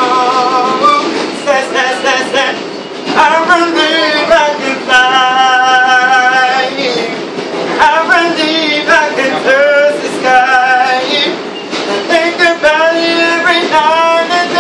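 A man singing unaccompanied, with long held notes, over the steady running noise of a subway car.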